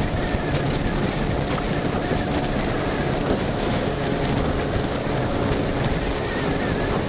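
Motor canoe running through river rapids: a steady engine drone under the rush and slap of water against the aluminium hull.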